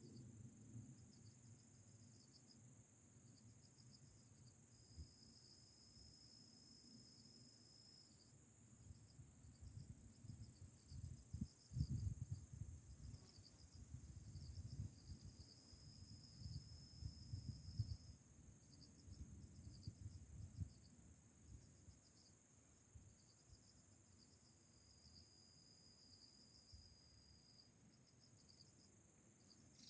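Faint insects chirping: short pulsed chirp trains at a high pitch, broken by three longer unbroken trills, over a steady high-pitched insect drone. Irregular low rumbling runs through the middle and is the loudest part.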